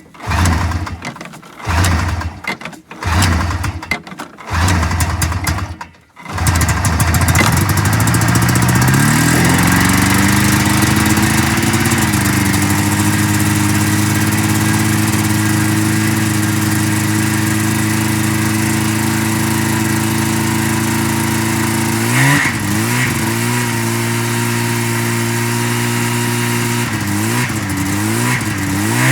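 1980 Yamaha SS 440 snowmobile's two-stroke engine, pull-started: it fires in several short bursts, then catches about six seconds in and keeps running. Its pitch climbs as it picks up, then it settles into a steady run, with a couple of brief revs near the end.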